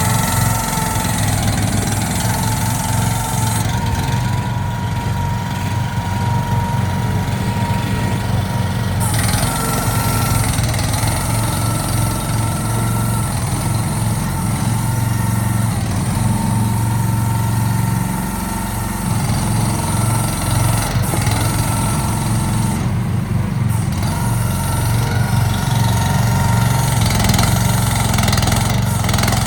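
The 420 cc gasoline engine of a CFG Industrial H12R mini excavator running steadily, with a higher whine over it that comes and goes.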